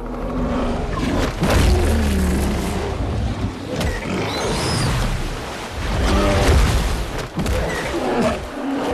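Film fight sound mix: a bear's growls and roars over deep booming rumbles, with a high gliding cry about four seconds in.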